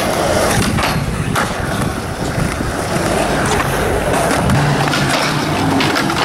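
Skateboard wheels rolling on smooth concrete, with several sharp clacks of the board striking the ground.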